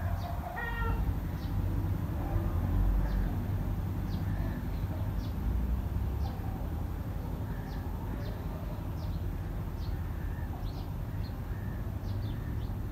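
Birds chirping outdoors: short high chirps repeating roughly once or twice a second, with one harsher pitched call about a second in. A steady low rumble runs underneath.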